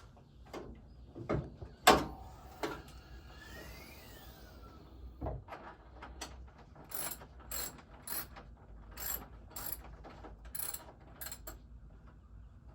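Ratchet wrench working in short clicking strokes, about two a second in the second half, with a few knocks of tools on metal before that, the loudest about two seconds in.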